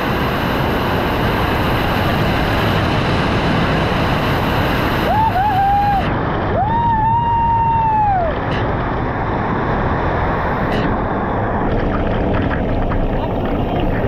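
Steady rushing of a waterfall, with two high, drawn-out calls about five and seven seconds in.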